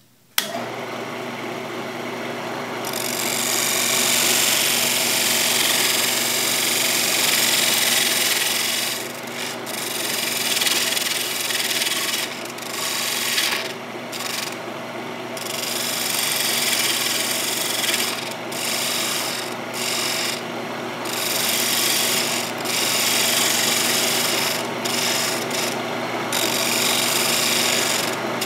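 A wood lathe is switched on and runs with a steady motor hum. From about three seconds in, a bowl gouge cuts the spinning mahogany blank with a loud hiss of shavings. The cut breaks off briefly several times as the tool is lifted and set again.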